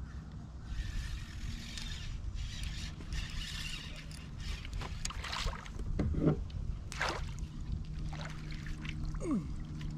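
Spinning reel being cranked while a hooked bass is played beside a kayak, then a few sharp splashes and knocks as the fish is brought up to the side. A steady low hum runs underneath.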